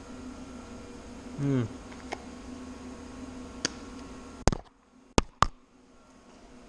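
Steady electric buzz with a fixed hum from the welder, with a few scattered clicks. About four and a half seconds in the buzz cuts off with a click, followed by two sharp clicks a quarter second apart.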